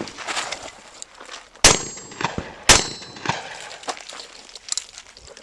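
Two shotgun shots about a second apart, the loudest sounds here, each followed by a short metallic ring. Lighter clicks and knocks of handling the gun come before and after.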